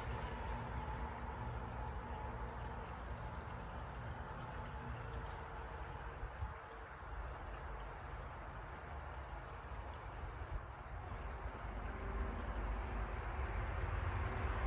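Steady high-pitched drone of insects calling, unbroken throughout, over a low rumble.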